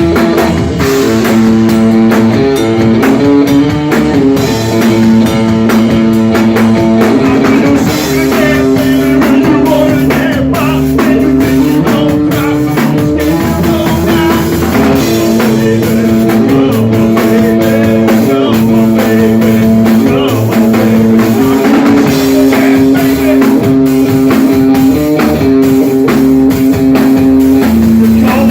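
Live rock band playing: a guitar line of held notes stepping up and down over drum kit and bass.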